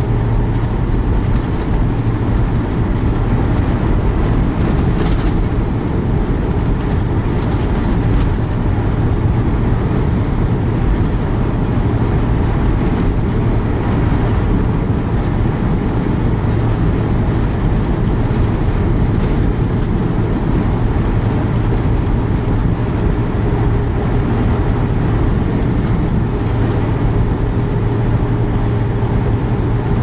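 Semi-truck cruising at highway speed, heard from inside the cab: a steady low drone of engine and road noise.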